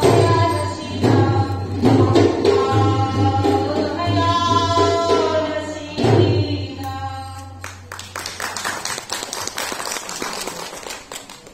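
Music for the Manipuri Leima Jagoi dance: a singing voice over a drum beating about once a second. The music stops about two-thirds of the way through, leaving a quieter, dense patter of small sharp sounds.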